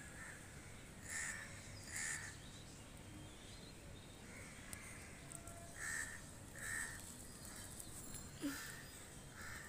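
Crow cawing repeatedly, about seven short caws, mostly in pairs about a second apart.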